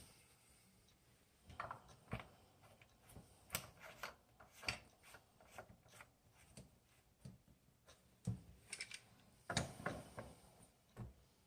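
Faint, irregular clicks, taps and scrapes of small metal and plastic faucet parts being handled and fitted back together.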